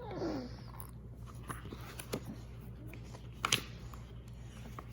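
A short falling vocal sound at the start, then a few light clicks and taps over a low steady hum, the sharpest about three and a half seconds in.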